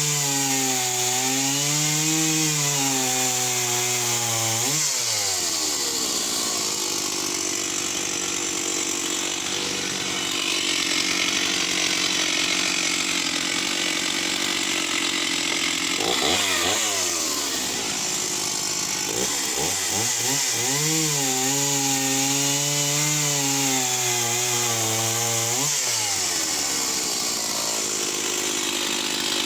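Stihl 038 AV EQ 61 cc two-stroke chainsaw cutting through oak at full throttle. The engine pitch sags and wavers under load in the cut, twice, and sweeps back up as the chain frees. It is cutting quickly; to the owner it is a really impressive performer.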